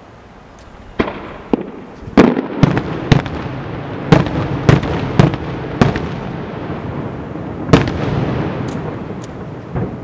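Aerial fireworks shells bursting: a run of sharp bangs, two or three a second at their thickest between about two and six seconds in, with rumbling echoes between them. One more loud bang comes near eight seconds, then the echo dies down.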